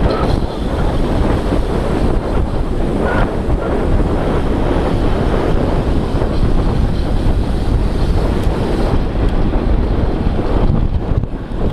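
Wind buffeting the microphone of a moving camera: a steady, loud rushing noise without a break.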